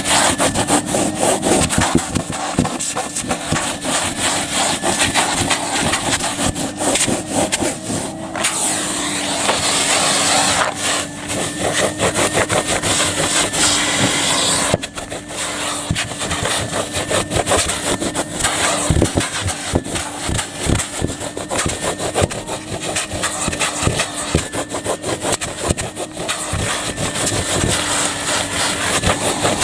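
Numatic Hetty tub vacuum cleaner running with a steady motor hum, its nozzle pushed back and forth over a small car rug with a continual scraping sound.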